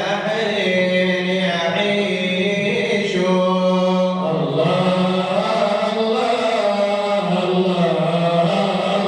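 Male voice chanting an Arabic madih, a devotional praise poem for the Prophet, in long held notes that slide from pitch to pitch without a break.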